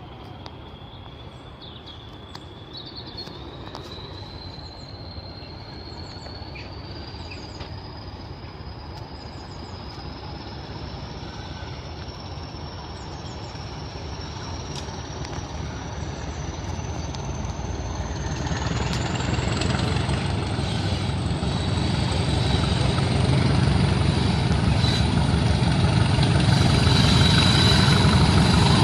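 A train approaching: a low rumble that grows steadily louder, building most over the last ten seconds, with a thin high whine that rises slowly in pitch the whole time.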